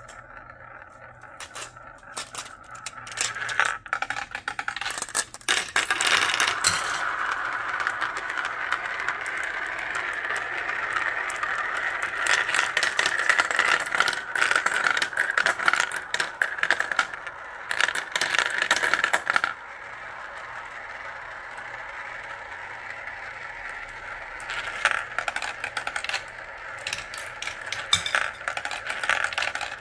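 Marbles rolling and clicking through a plastic marble run. About six seconds in, several marbles circle a plastic funnel bowl with a steady rolling whir that lasts until nearly twenty seconds in, then gives way to quieter, scattered clicks and rattles as marbles drop through the tracks.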